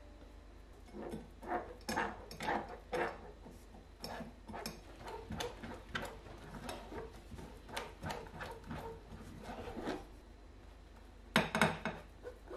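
Silicone spatula scraping thick mint pastry cream out of a stainless steel saucepan and pressing it through a metal mesh sieve, in repeated irregular strokes about twice a second. Near the end, a quick cluster of sharp knocks, the loudest sounds.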